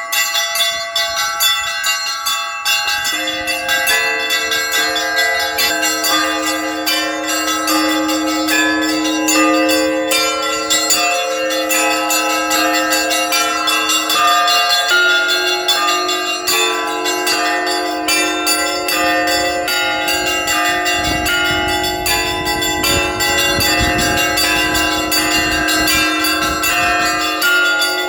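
Russian Orthodox church bells rung together in the belfry. Small bells are struck quickly and repeatedly over the long ringing of larger, deeper bells, which come in about three seconds in.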